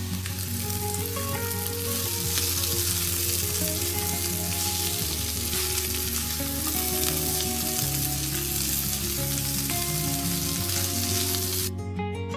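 Beetroot strips frying in oil in a pan, sizzling steadily as they are stirred with a silicone spatula; the sizzle cuts off suddenly near the end.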